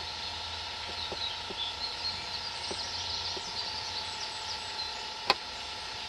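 Steam tank locomotive standing with a steady hiss of steam, a bird chirping quickly in the middle, and one sharp click about five seconds in.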